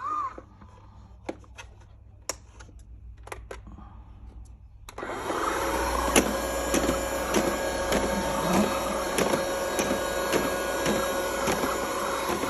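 Robot vacuum cleaner, at first quiet apart from a few faint clicks. About five seconds in, its motor starts abruptly and runs steadily as a loud whir with one held tone.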